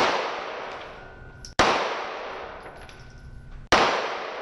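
Handgun fired three times, about two seconds apart: the first shot right at the start, then one about a second and a half in and one near the end. Each crack is followed by a long echo that dies away in the indoor range.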